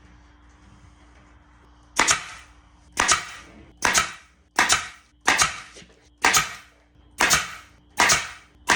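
Hand staple gun firing staples through chicken wire into a wooden frame: nine sharp snaps about a second apart, starting about two seconds in.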